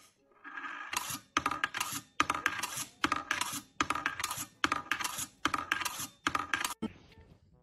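A metal ball running through a cup-shaped perpetual-motion desk toy, rattling and clattering about eight times, a little under a second apart, then stopping about seven seconds in.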